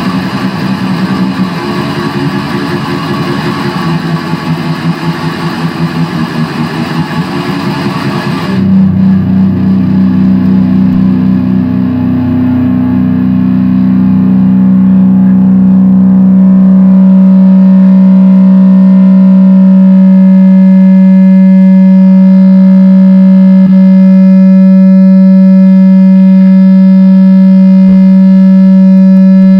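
Electric guitar, an Epiphone SG Special through a heavily distorted Line 6 Spider III amp, playing fast distorted metal riffs. About eight seconds in, a single low note is struck and left ringing with no hand on the strings. The note swells into steady, loud amp feedback, with a higher feedback tone joining partway through.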